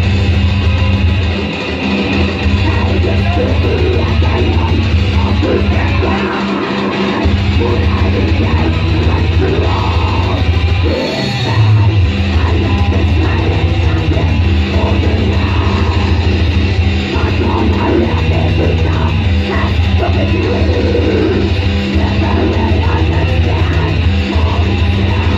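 A black metal band playing live: loud, heavy distorted electric guitar and bass with drums, the low end briefly dropping out a few times.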